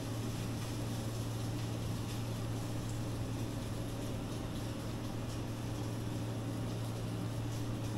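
Steady low machine hum with an even background whir, with a few faint light ticks.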